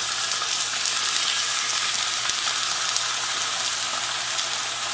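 Tilapia fillets frying in hot oil in a nonstick pan: a steady sizzling hiss with fine crackles as fresh fillets are laid into the oil.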